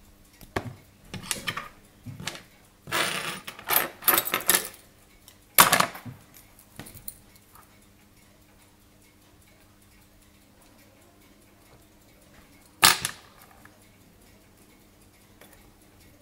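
Small metal clicks and scraping as a pocket-watch movement in its holder is handled with tweezers and fingers, busiest in the first seven seconds, then a single sharp click about thirteen seconds in.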